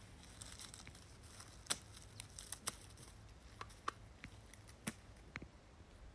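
Footsteps in dry leaves and twigs: a scattered series of faint crackles and sharp clicks at an uneven pace, over a faint low rumble.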